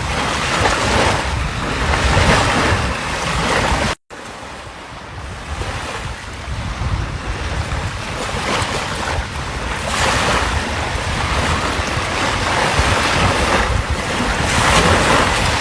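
Sea waves washing on the shore, the surf swelling and ebbing every few seconds, with wind buffeting the microphone. The sound drops out for an instant about four seconds in.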